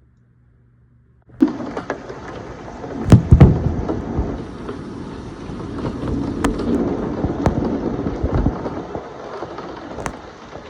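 Hail and rain pelting down hard, with sharp clacks of single hailstones striking scattered through the steady hiss. It starts abruptly about a second in, and the loudest moment is a burst of heavy hits with a low rumble about three seconds in.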